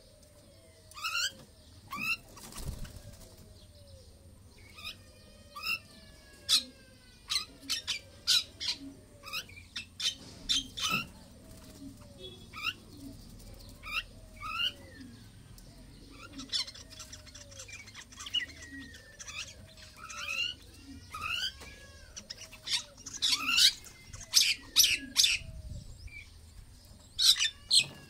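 Common mynas calling in an aviary: a run of sharp chirps, clicks and whistles, densest and loudest near the end. Under them a low, soft call repeats about once a second.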